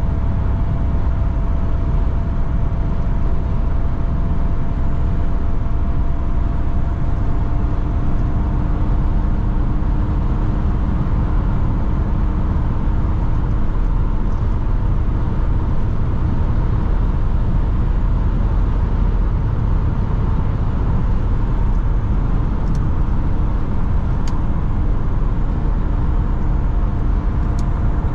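Steady in-cabin noise of an Opel Omega B 2.2 DTi cruising at motorway speed: low road and tyre rumble with a steady engine drone from the four-cylinder turbodiesel.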